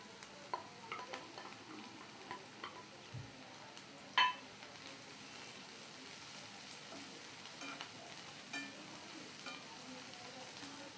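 Chopped onion, garlic and dried red chillies frying in oil in a non-stick pan, a faint steady sizzle, with a spatula stirring and scraping the pan in small clicks. One sharper knock about four seconds in.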